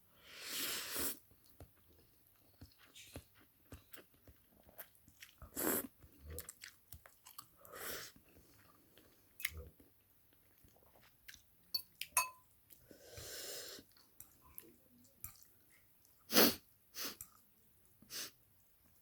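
A person eating a bowl of ramen noodles: chewing with noisy slurps of the soup and noodles, the longest near the start and in the middle, between small clicks.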